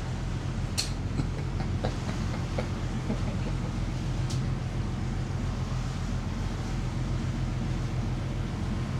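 Motor yacht's diesel engines running steadily underway, a constant low drone with rushing wind and water noise, and a couple of sharp clicks about a second in and again after four seconds.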